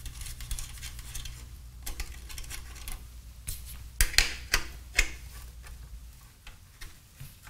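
Steel combination wrench clicking and clinking on nuts on the BC-348 receiver's metal front panel as they are loosened, with scattered sharp metallic clinks, the loudest about four and five seconds in.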